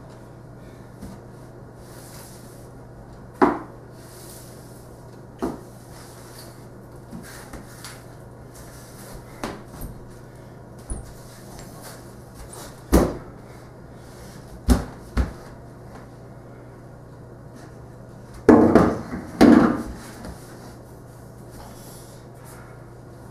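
Scattered knocks and thumps on a hardwood floor from barefoot hopping and a crutch-and-broom rig, with a cluster of louder knocks near the end. A steady low hum runs underneath.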